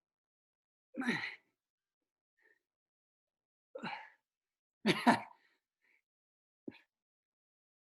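A person grunting and exhaling hard with effort, four short falling groans a second or two apart, the strain of holding and rotating through a plank near exhaustion.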